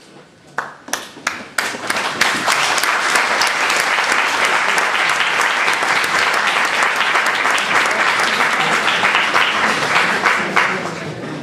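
Audience applauding: a few scattered claps that build within about two seconds into steady, loud applause, which starts to die away near the end.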